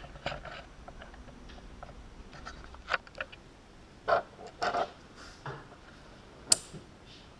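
Scattered clicks and light knocks of small quadcopter parts and wire leads handled on a cutting mat, ending in a sharp click about six and a half seconds in as the small white plug connectors are pushed together.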